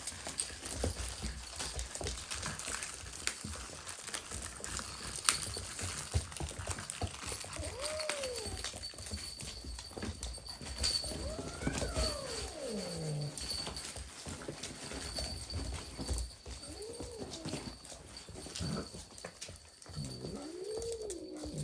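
Puppies whining four times, each a short cry that rises and then falls in pitch, over steady scuffling and clicking from claws and paws on the floor. A faint, steady, high-pitched tone runs underneath.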